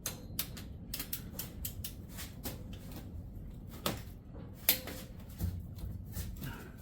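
Irregular metallic clicking of a click-type torque wrench's ratchet being worked back and forth on a small block Chevy cylinder head bolt, several clicks a second.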